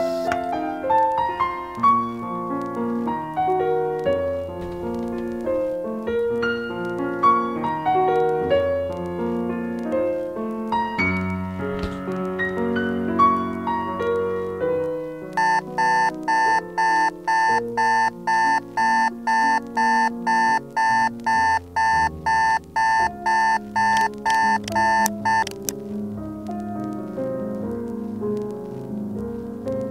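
Soft piano music. About halfway in, a digital alarm clock joins it, beeping in quick pulses about twice a second for roughly ten seconds before it is switched off.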